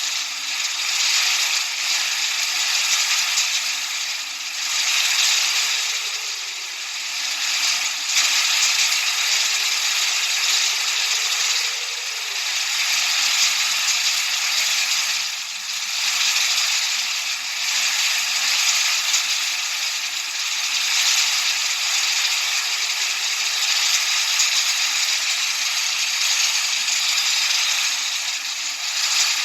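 Steady white-noise hiss used for tinnitus masking, strongest in the upper range, its loudness swelling and easing gently every few seconds.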